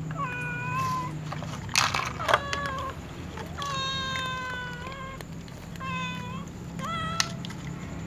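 Domestic cats meowing to be fed, about five meows in all, one of them long and drawn out in the middle. A couple of sharp knocks come about two seconds in.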